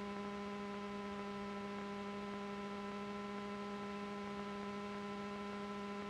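Steady electrical hum with a stack of evenly spaced overtones, picked up in the aircraft's intercom and radio audio feed while nobody is transmitting.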